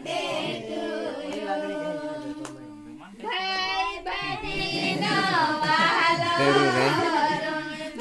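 A group of people singing together, several voices at once. The singing dips a little before halfway and comes back louder a little after.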